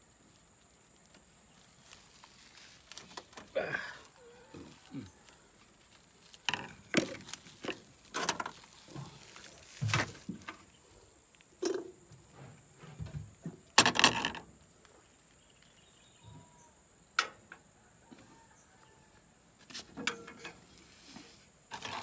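Scattered short knocks and clicks, a dozen or so at uneven intervals, the loudest about 14 seconds in, typical of metal parts and tools being handled during a repair.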